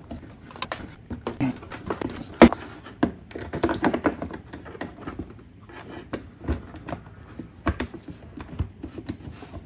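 Plastic clicks, taps and rubbing as a red LED reflector light is handled and pressed into its clips in a car's rear bumper, with one sharp click about two and a half seconds in.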